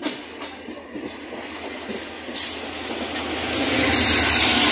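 Oncoming diesel locomotive passing close on the adjacent track, its engine drone and rush of air growing louder from about halfway through, heard from the side of a moving train.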